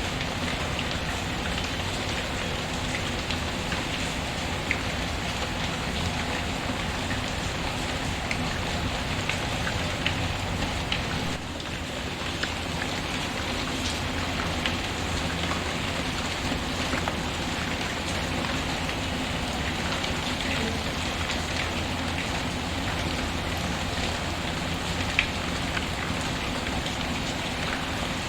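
Steady rain falling, with scattered sharp pops and crackles of a wood fire in a fireplace.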